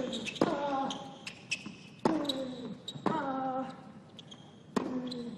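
Tennis rally on a hard court: four racket strikes on the ball, about one to one and a half seconds apart, each followed by a player's grunt that falls in pitch.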